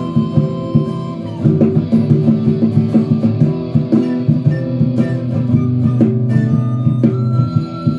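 Band music: an instrumental passage led by guitar, with drums keeping a steady beat.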